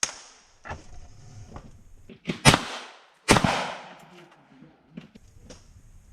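Gunshots fired in a timed shooting stage: about seven sharp shots at uneven spacing. The loudest two come about two and a half and three and a half seconds in, with fainter cracks between them.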